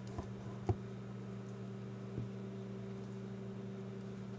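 Steady low hum with a few light clicks, the sharpest about a second in, from a small screwdriver driving a screw into the plastic back case of a GPS unit.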